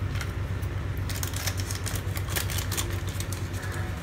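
Cumin seeds crackling as they dry-roast in a hot kadai, with small irregular ticks throughout, over a steady low hum.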